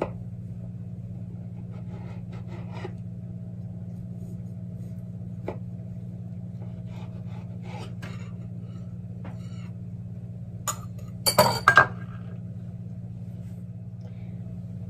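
A table knife cutting a slice from a soft date cake on a wooden board, with faint scrapes and taps. A few sharp clinks come close together about eleven seconds in. A steady low hum runs underneath.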